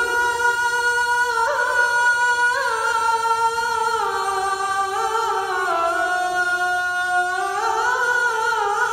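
A man's voice chanting the adhan, the Islamic call to prayer, holding one long melismatic note. The pitch steps gradually downward, then rises again near the end.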